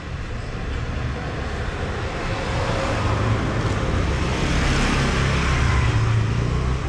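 Motor vehicle engine and road noise, a steady low rumble under a broad rushing haze that grows louder over the first few seconds and stays loud through the middle.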